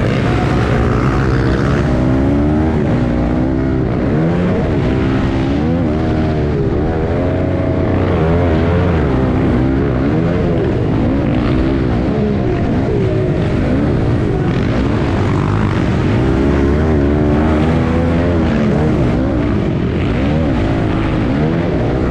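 Dirt bike engine racing, heard from a camera on the bike: its pitch climbs and drops again and again as the throttle is opened and closed.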